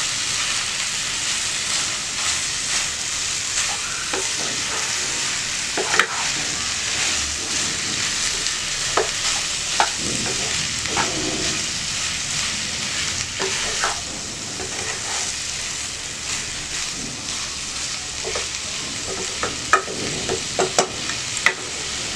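Cauliflower and minced chicken sizzling in a pan, sautéed dry without added water, while a wooden spatula stirs and scrapes them. A steady frying hiss runs throughout, with scattered taps of the spatula against the pan, several close together near the end.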